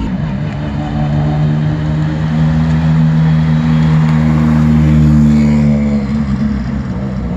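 Ford Fiesta R5 rally car's 1.6-litre turbocharged four-cylinder engine running at low revs as the car rolls slowly past, with a steady pitch; loudest about five seconds in, then easing as it moves away.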